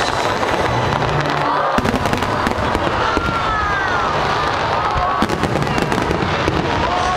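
A large fireworks display going off without pause: dense crackling and popping, with thin whistling tones that arc up and down over it.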